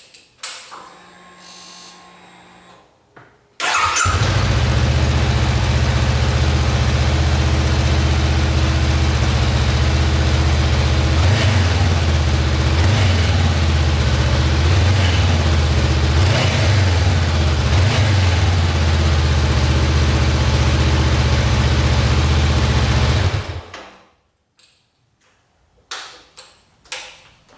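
Honda CBR500R's 471 cc parallel-twin engine on its stock exhaust, cold-started. After a brief quieter hum, the engine catches about four seconds in, idles steadily for about twenty seconds, then is switched off.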